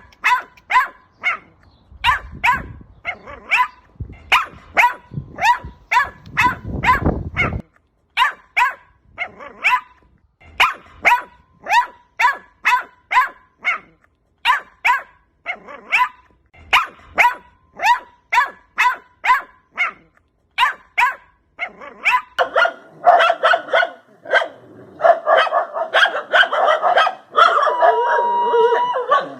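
A dog barking in short, repeated barks, about two or three a second. From about three-quarters of the way through, the barking gets denser and overlapping, with a drawn-out, higher whine near the end.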